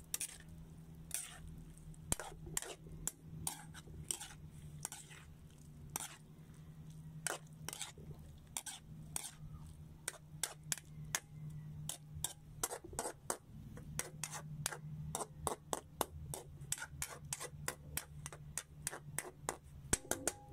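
Metal spatula scraping and clacking against a metal wok as chopped Chinese cabbage is stir-fried: many short irregular clicks that come thicker after the first few seconds, over a steady low hum.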